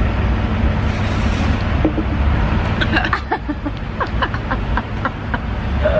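Steady low rumble of road traffic on a city street, with a few short clicks and faint snatches of distant voices about halfway through.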